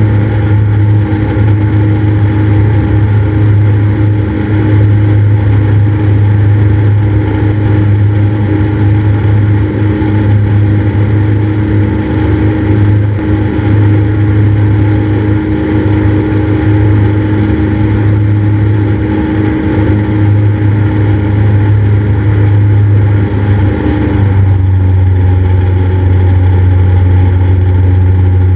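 Cessna 172's piston engine and propeller droning steadily in flight. The engine note changes about 24 seconds in.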